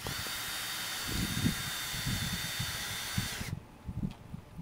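Cordless drill driving a self-tapping screw through an aluminum screen frame into a vinyl window frame: a steady motor whine for about three and a half seconds that then stops suddenly, with low thumps underneath.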